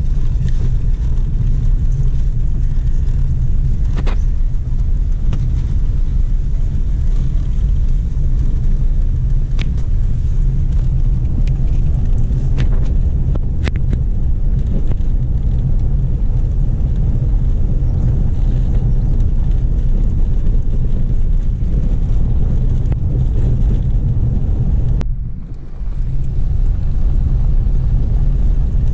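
Steady low rumble of a car driving along a road, with road and engine noise. A few faint clicks are heard, and the noise dips briefly near the end.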